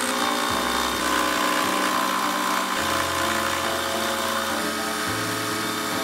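Milling machine spindle running a single-point cutter in an offset holder, cutting a step around a round metal bar: a steady hiss of metal cutting with a whine through the middle of the cut.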